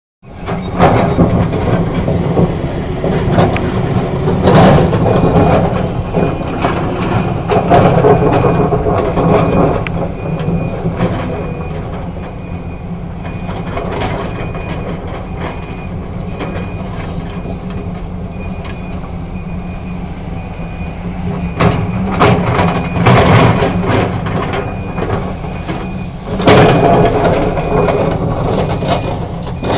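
Hitachi excavator's diesel engine working under changing load, with repeated metallic clanks and knocks from the machine's bucket and tracks. From about a third of the way in, a reversing alarm beeps steadily and evenly.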